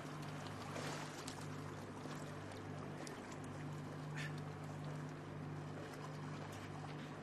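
Steady low hum of a ship's machinery, with water washing against the hull and a few faint knocks.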